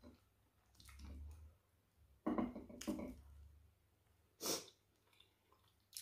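Close-up eating sounds: chewing boiled yam with soft wet mouth noises, a few separate short bursts rather than a steady stream, and a short sharp breath about four and a half seconds in.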